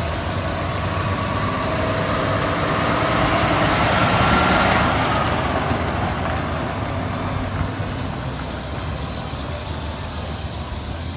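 Heavy truck's diesel engine and tyres as it drives slowly past and away, growing louder to a peak about four to five seconds in and then fading.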